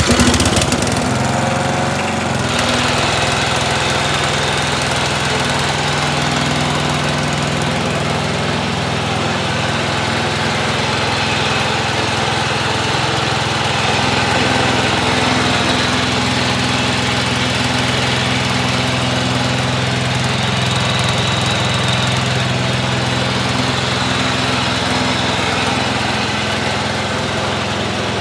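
Cub Cadet 80 lawn tractor's engine firing up on a booster pack and then running steadily. It runs well on its first start after checks of spark, fuel and oil.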